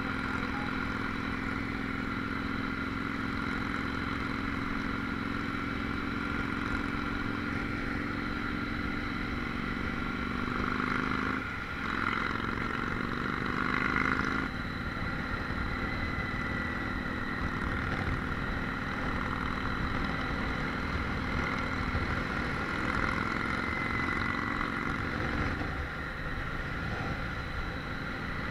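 Harley-Davidson Street 500's V-twin engine running under way, heard from a helmet chin camera with steady wind rush. About eleven seconds in the engine note breaks briefly, then climbs for a few seconds and steps down again at about fourteen seconds, like a gear change.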